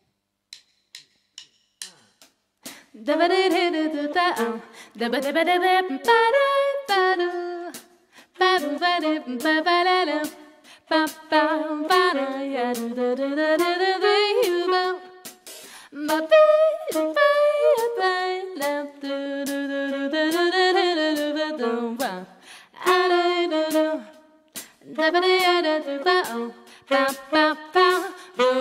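A woman singing a slow, gliding melody together with an alto saxophone, without bass or drums. Short, even clicks keep time about twice a second; they start alone, and the voice and saxophone come in about three seconds in.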